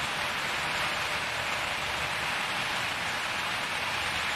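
Steady, even hiss of falling, splashing water.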